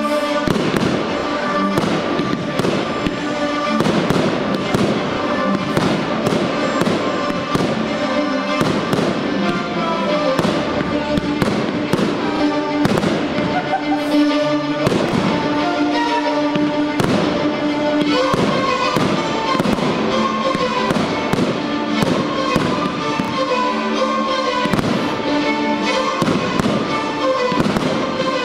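Aerial fireworks bursting and crackling in many rapid sharp pops throughout, over music with long held notes.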